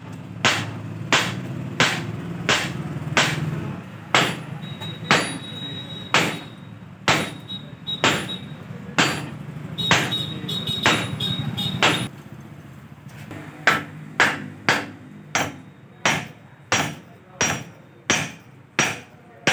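Hammer blows on steel at a Mahindra tractor's front axle, driving a drift at the wheel spindle: sharp metallic strikes about one and a half a second, with a faint ring. They break off briefly about twelve seconds in, then resume slightly quicker. A steady low hum runs under the first twelve seconds and then stops.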